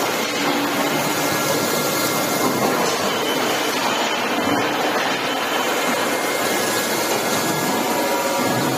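Steady forging-shop machinery noise: an even, unbroken rushing hum with a few faint steady tones and no distinct press blows.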